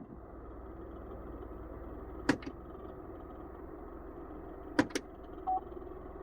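Steady rush of a Chevrolet Onix Plus's cabin air-conditioning, with sharp double clicks from the evaporator housing twice, about two and a half seconds apart, followed by a short beep.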